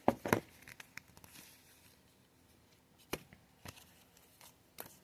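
Cardboard and paper packaging of an AirPods Pro box being handled: two sharp clicks or taps at the start, then a few fainter ones later.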